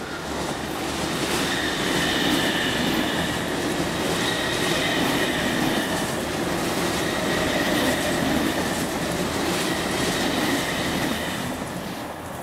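An MTR East Rail Line MLR (Metro-Cammell) electric multiple unit passing: a rolling rumble of wheels on rail with repeated clacks over the rail joints and a steady high-pitched squeal. It grows louder over the first two seconds as the train draws near and fades near the end as the last cars pass.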